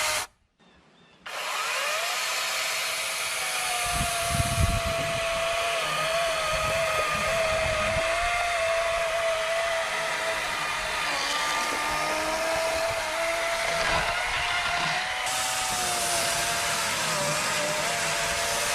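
Cordless brushless electric chainsaw starting up about a second in and running steadily, its motor and chain giving a high whine that wavers and dips in pitch several times. A few low thuds come in a few seconds after it starts.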